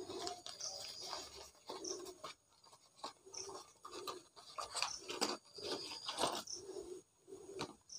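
Faint, intermittent rustling and scratching of small plastic packets and trinkets being handled and moved about on the floor, with a few small clicks.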